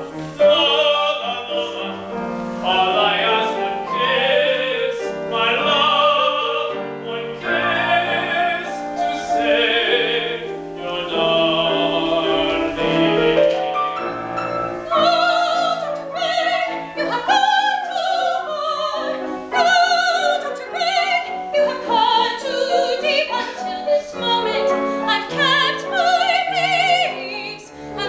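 Operatic singing with a wide vibrato, accompanied by a grand piano.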